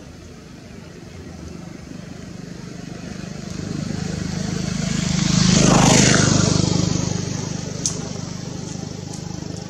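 A motor vehicle passing by: its engine sound swells to a peak about six seconds in, then fades away.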